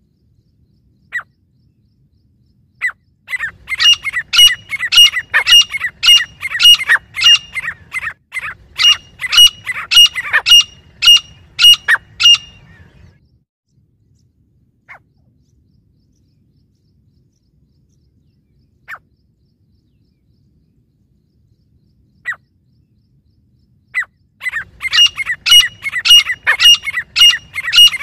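Grey francolins calling: a loud run of repeated ringing notes, about two a second, for some ten seconds, then a few single notes, and the repeated calling starting again near the end.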